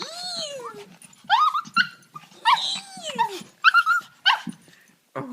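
Excited dog whining with joy: a long falling whine, then a run of short, high whines and yelps that rise and fall in pitch.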